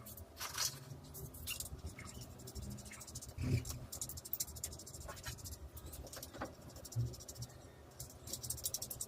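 Scattered light metallic clicks and scrapes of hand tools on a motorcycle, with soft knocks about 3.5 and 7 seconds in and a run of rapid fine ticks near the end, as a nut is refitted.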